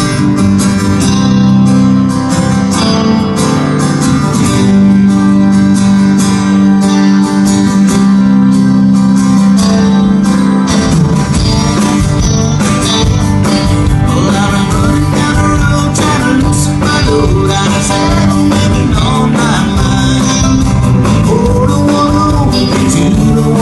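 Live band playing country-rock, led by strummed acoustic guitars, with voices singing over it from about halfway through.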